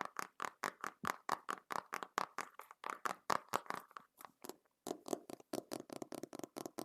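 Fingertips or nails tapping rapidly on a book's cover, about eight to ten taps a second. The tapping pauses briefly about four and a half seconds in, then resumes a little duller.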